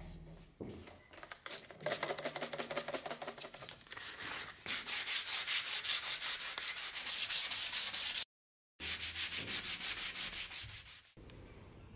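Hand scrubbing the old wooden scabbard halves with a white cloth pad, in fast back-and-forth strokes of several a second that break off briefly about eight seconds in, then resume until near the end.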